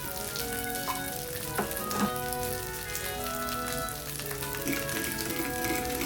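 Food sizzling in a hot frying pan under background music with a melody, with a couple of light knocks about one and a half and two seconds in.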